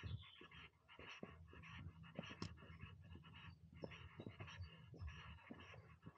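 Faint footsteps scuffing and crunching along a dry dirt footpath, in an uneven walking rhythm.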